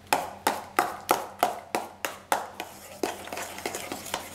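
A spoon knocking against a mixing bowl while stirring batter, with sharp clinks at about three a second.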